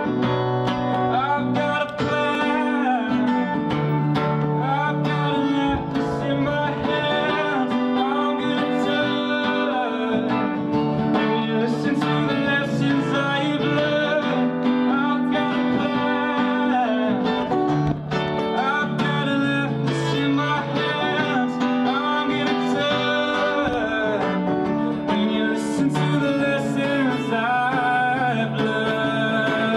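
Background music: an acoustic guitar song with a singing voice.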